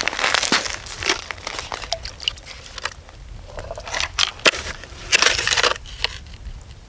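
Snow crunching and scraping in short uneven spells as a person kneels and shifts beside a hole in the ice, with a few sharp clicks from handling the tip-up and line; the loudest crunch comes a little past five seconds in.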